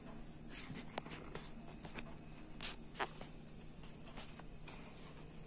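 Faint rustling with two sharp, light clicks, about one second and three seconds in, over a low steady hum.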